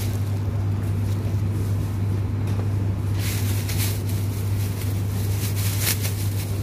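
Steady low hum of a supermarket's refrigerated produce display case, with brief bursts of rustling about three seconds in and again near the end.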